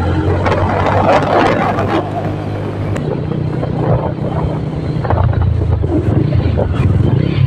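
Motorcycle engine running as the bike is ridden, a steady low drone over road noise; the engine note shifts up about three seconds in.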